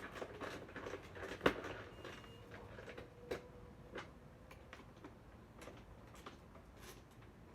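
Scattered light clicks and knocks from handling small hard objects, the loudest about one and a half seconds in.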